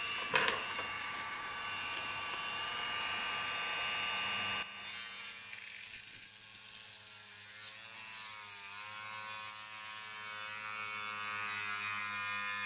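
Proxxon FBS 240/E mini drill running with a thin cutting disc, cutting into a white plastic sheet: a steady high motor whine. It dips briefly about four and a half seconds in, and its pitch wavers as the disc bites into the plastic around the middle.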